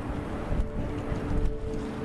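A fishing cutter's diesel engine drones across the water as a steady hum of a few tones, with wind rumbling on the microphone.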